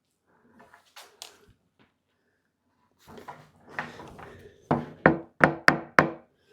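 Knocks and bangs on a hollow melamine cabinet box: a few soft knocks, then a run of five sharp, ringing blows in quick succession near the end.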